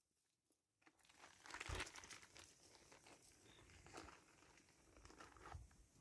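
Near silence, with a few faint crackles about a second and a half in.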